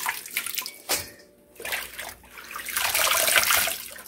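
Handfuls of wet collard greens lifted out of a sink of rinse water and dropped into a stainless steel bowl: water splashing and dripping in uneven bursts, the loudest stretch about three seconds in.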